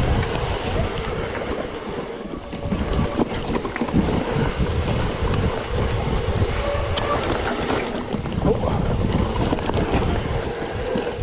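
Mountain bike being ridden over a rough trail: a continuous rumble of tyre noise with irregular knocks and rattles from the bike, and wind buffeting the microphone.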